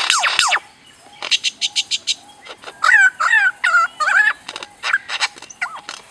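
Lyrebird mimicking other sounds: quick laser-like falling sweeps at the start, a run of sharp clicks, then warbling whistled calls that waver up and down in pitch.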